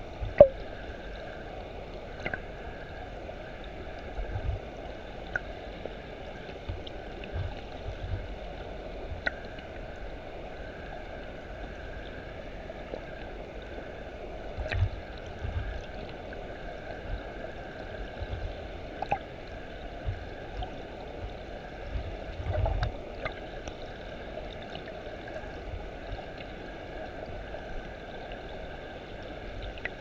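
Water churning below a waterfall, heard from underwater: a steady muffled rush with a sharp click just after the start and scattered low knocks.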